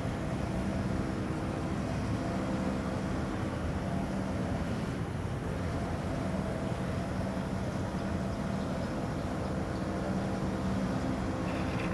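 Vehicle engine running at a steady speed with continuous road and wind rumble, heard while riding along.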